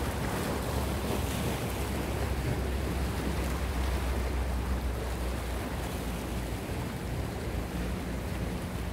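Sea waves washing against rocks and wind buffeting the microphone, under a low steady drone from a passing motorboat.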